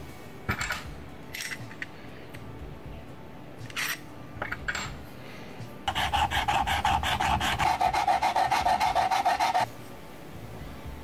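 A hand file rasping over a small metal bracket. A few short scrapes come first, then from about six seconds in a fast run of back-and-forth strokes, several a second, with a ringing note from the metal, lasting nearly four seconds.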